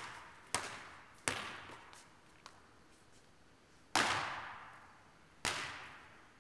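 Basketball bouncing on a gym floor: a handful of separate thuds, each ringing out with the hall's echo, the loudest about four seconds in.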